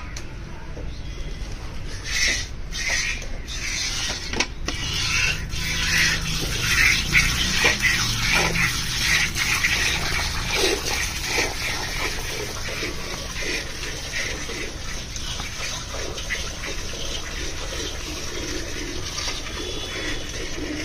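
Cow being milked by hand: rhythmic squirts of milk hissing into a steel bucket with froth already in it.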